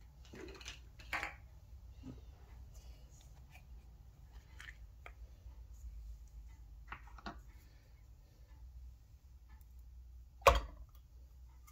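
Scattered small clicks and taps of hands handling things around a metal muffin tin, and about ten and a half seconds in one short sharp knock, the loudest sound, as a blob of slime is set down into one of the tin's cups.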